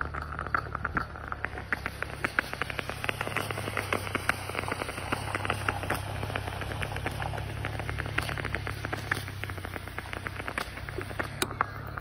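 Stove-top moka pot heating on a burner: a dense, irregular crackling and ticking over a steady hiss and a low hum.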